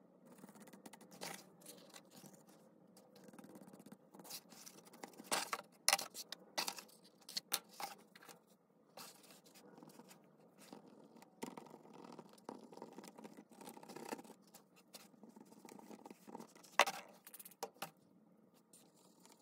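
Dry scratching and scraping of a Distress crayon being rubbed over embossed cardstock, in uneven strokes with many small ticks. The sharpest come about six seconds in and again near the end.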